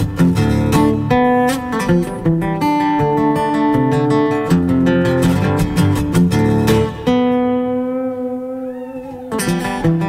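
Background music on acoustic guitar: strummed chords, with one chord left ringing for about two seconds near the end before the strumming picks up again.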